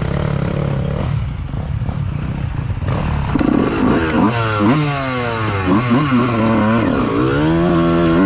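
Dirt bike engine running low and steady, then from about three seconds in revving hard up and down several times, its pitch rising and falling sharply, as it is worked up a hill climb.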